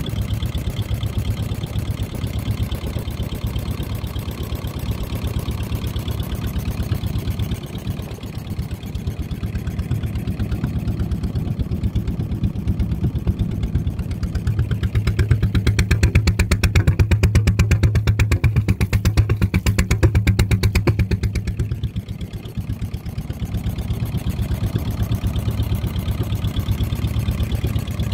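Wickström AC inboard motorboat engine running steadily with an even, rapid firing beat while the boat is under way. It gets louder for several seconds in the middle, dips briefly, then settles back.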